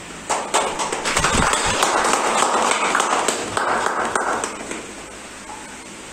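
Applause from a small audience in a room, starting abruptly about a third of a second in and dying away after about four seconds.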